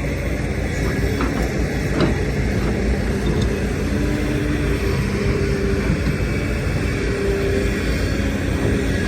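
Heavy diesel earthmoving machinery running steadily: excavator and dump truck engines rumbling, with faint tones that rise and fall in level and a few light knocks about two seconds in.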